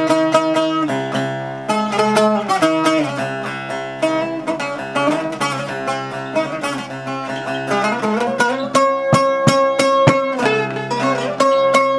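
Instrumental music led by a plucked string instrument playing a fast, closely picked melody over sustained low notes.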